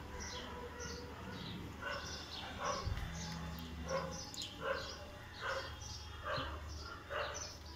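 A dog barking over and over in the background, about one bark a second.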